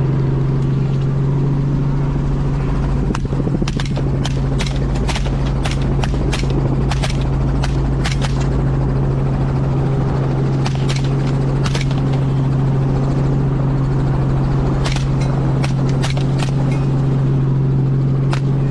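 Helicopter drone heard from inside the cabin, with a semi-automatic rifle fired in quick strings of shots: more than a dozen rapid shots a few seconds in, a few more midway, then another fast string near the end.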